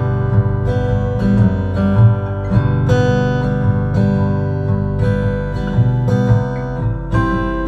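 A portable Bluetooth speaker playing acoustic guitar music with a strong, repeating bass line, as part of a bass and sound test.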